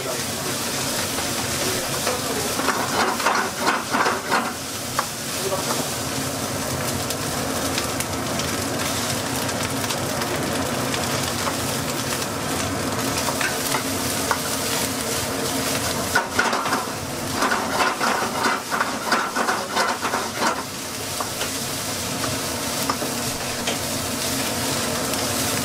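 Rice sizzling as it is stir-fried in a wok over a gas flame, a spatula stirring and scraping it against the pan. Runs of fast scraping strokes come about three seconds in and again from about sixteen to twenty seconds.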